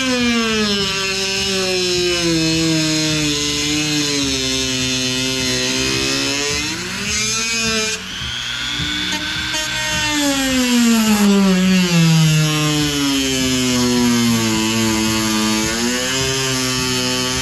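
Corded rotary tool with a cutting wheel cutting through a plastic truck air dam. Its motor whine sinks in pitch as the wheel bogs down in the plastic, then climbs back when eased off, twice over.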